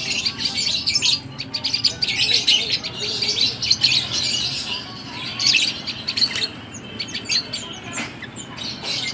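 Many small songbirds chirping and twittering at once, a dense chorus of rapid high chirps and trills from crowded birds kept for sale.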